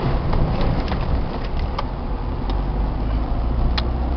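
Car driving through a flooded street, heard from inside the cabin: a steady low rumble of the engine and of the tyres pushing through water, with a few sharp ticks scattered through it.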